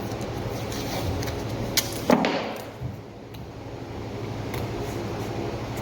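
Tape being pulled off the roll and torn for covering an electrical outlet: a short loud rip about two seconds in, with light clicks and taps around it, over a steady low hum.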